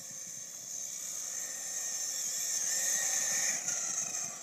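High-pitched whine of a fast electric RC car's motor, growing louder as the car approaches, then dropping in pitch as it passes near the end.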